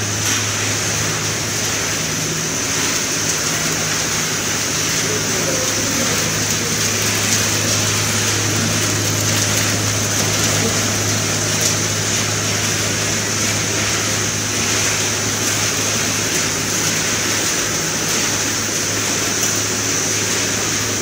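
Snack food production line machinery running: a steady mechanical noise with a constant low hum and a thin high whine, no breaks or changes.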